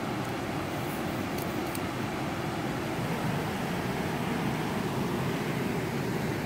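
Steady rush of river water pouring over a small waterfall and rapids.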